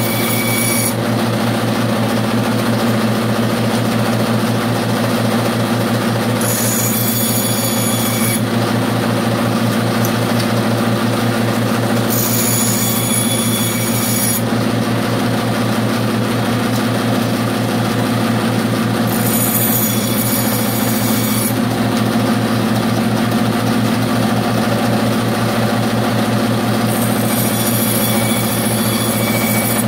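Band saw running steadily with a constant motor hum, its blade cutting through small squares of scrap wood in passes of about two seconds that come roughly every six to seven seconds.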